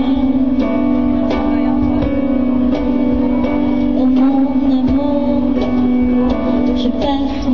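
Live band music from a concert stage: long held notes with higher melodic lines over them, punctuated by sharp percussive clicks.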